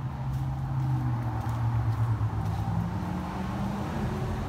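A motor vehicle's engine running with a steady hum, its pitch climbing through the second half as it speeds up.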